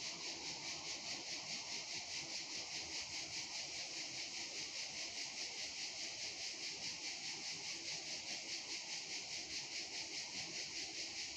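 A faint, steady chorus of insects: a high buzzing hiss that pulses evenly several times a second.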